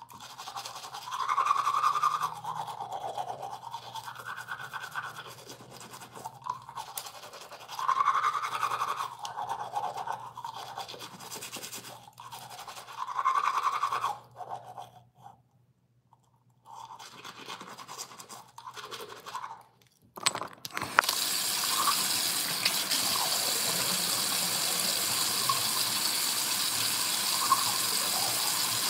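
Teeth being brushed with a manual toothbrush: wet scrubbing in uneven swells with short pauses. About two-thirds of the way through a tap is turned on and water runs steadily, louder than the brushing.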